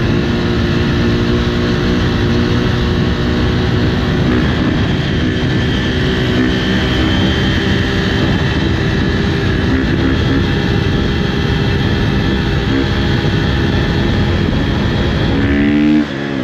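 Husqvarna FC350's four-stroke single-cylinder engine running under steady throttle while riding, with heavy wind noise on the microphone. About a second before the end the level drops suddenly and the engine pitch shifts as the throttle is eased off.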